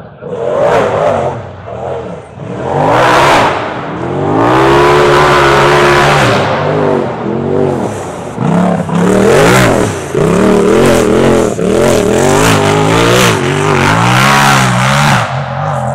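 Race-prepared Polaris RZR side-by-side's engine revving hard on a steep rocky hill climb. It is held at high revs for a couple of seconds near the start, then rises and falls over and over as the throttle is worked.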